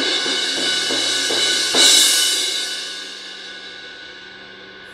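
Zildjian 18-inch K Dark Thin Crash cymbal struck with a mallet, ringing with a shimmering wash of many steady overtones; a harder hit about two seconds in swells it, and it then rings out and fades. The cymbal has had three cracks cut out.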